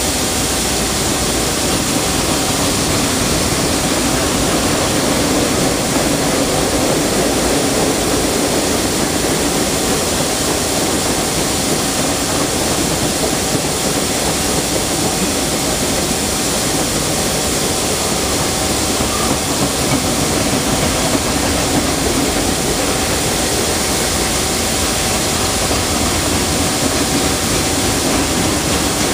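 Freight train cars rolling past close by, a steady, unbroken rumble and rattle of steel wheels on rail, with a faint steady whine over it.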